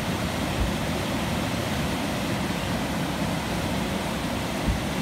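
Steady rush of water pouring through a dam spillway, an even roar with no let-up. Two brief low thumps, about half a second in and near the end.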